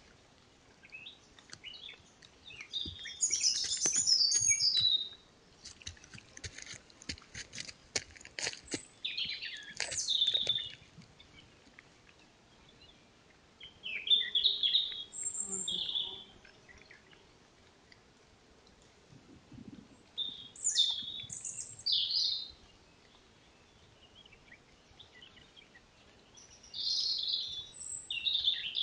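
Small songbirds singing short, high chirping phrases every few seconds, with a run of faint clicks about a quarter of the way in.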